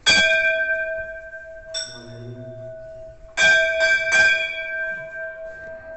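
Temple bell struck by hand and ringing on: one strong strike, a lighter one, then three quick strikes, each leaving a long, slowly fading ring.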